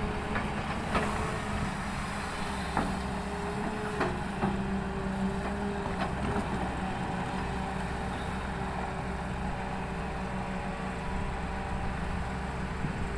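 Hyundai 220LC crawler excavator's diesel engine running steadily as it swings and digs soil, with a faint wavering tone over the hum and a few sharp knocks in the first half.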